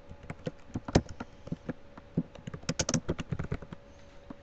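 Typing on a computer keyboard: a run of quick key clicks, densest around three seconds in, thinning out near the end.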